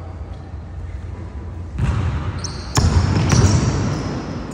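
A basketball dribbled hard on the gym floor during one-on-one play: a few loud bounces starting about two seconds in.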